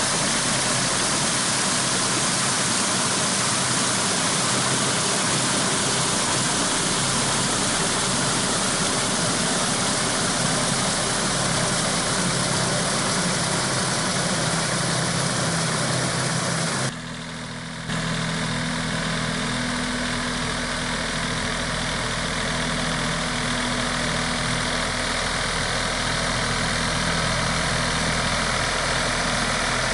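Yanmar EG225 tractor's diesel engine running steadily while its PTO-driven power harrow works the mud and water of a flooded rice paddy during puddling. About halfway through the sound drops briefly, then the engine runs on steadily with a clearer low hum.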